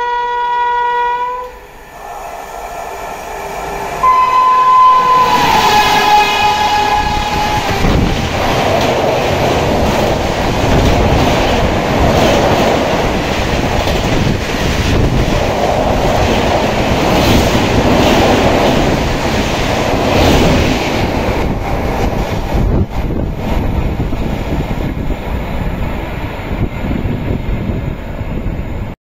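Express passenger train passing through at about 130 km/h. A short locomotive horn blast comes first. About four seconds in, a long, loud horn blast drops in pitch as the locomotive goes by. Then for some twenty seconds the coaches rush past with loud wheel clatter, until the sound cuts off suddenly near the end.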